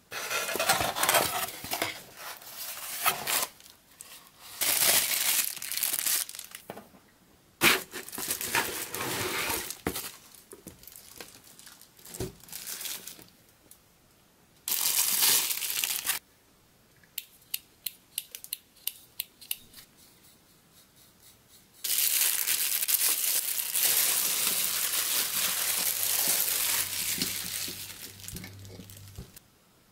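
Paper and plastic packaging being handled: a paper leaflet rustling and plastic wrapping crinkling in several bursts. A run of small, separate clicks comes about midway, then a long stretch of crinkling near the end.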